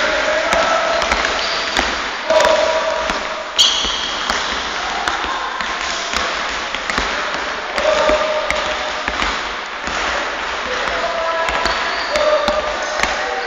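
Basketballs bouncing on a hardwood gym court, a run of sharp irregular thuds that echo in a large sports hall.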